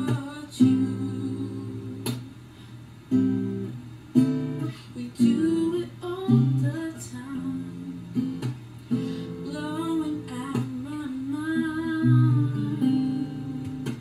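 Steel-string acoustic guitar played in chords, with a woman's voice singing over it at times.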